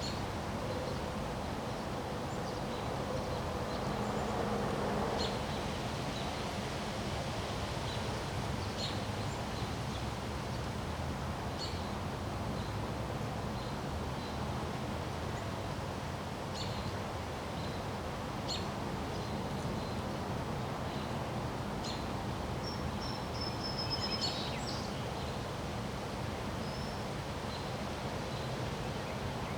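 Steady wind noise with rustling, and small birds chirping now and then over it, with one short, higher whistled call about three-quarters of the way through. A faint low hum swells and fades a few seconds in.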